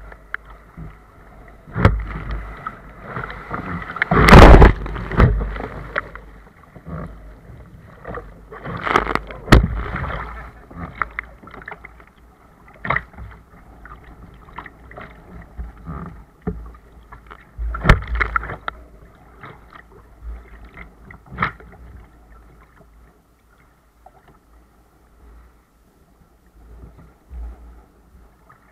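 Choppy sea water splashing and slapping against a sea kayak's hull and deck while the paddle blades dip and pull, close to the deck. The splashes come irregularly: the biggest hit about four seconds in, more around nine and eighteen seconds, and the water goes quieter near the end.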